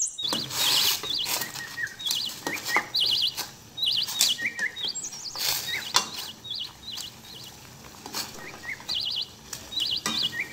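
Small birds chirping in short repeated trills, with a few sharp clinks of a ladle against a stainless steel pot and wire strainer as shiitake mushrooms are scooped out of boiling water.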